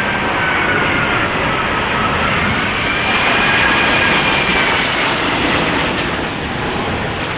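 Airbus A380-841's four Rolls-Royce Trent 900 turbofans on landing: a loud, steady jet rush with whining tones that slowly slide in pitch, easing a little near the end.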